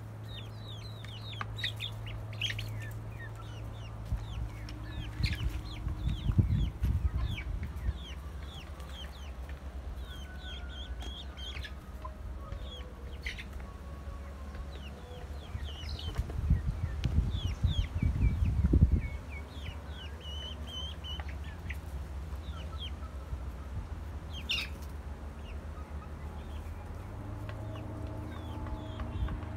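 Hens and half-grown chicks clucking and peeping, with many short high peeps falling in pitch throughout. Two stretches of low rumbling noise, around 6 seconds in and from about 16 to 19 seconds, are the loudest parts.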